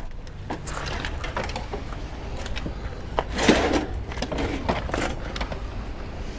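Scattered light knocks and clunks of things being handled, with a louder scraping rush about three and a half seconds in.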